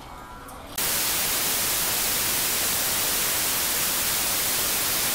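Television static: a loud, even hiss of white noise that cuts in suddenly about a second in and holds steady, after a faint tail of music.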